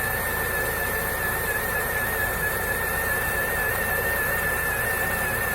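Lada Niva's 1.7-litre four-cylinder engine idling with all accessory belts removed, a steady high-pitched whine that wavers slightly riding over the engine note. The whine comes from the crankshaft area and persists after a full rebuild with a new oil pump, timing chain and gears; its cause is unknown.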